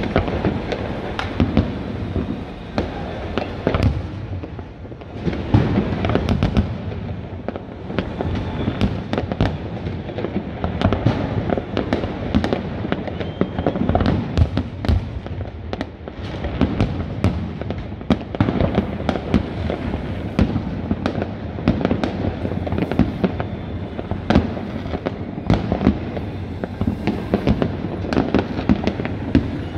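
Many fireworks going off at once across a city: an unbroken run of bangs and pops, several sharp reports a second over a constant rumble of more distant blasts.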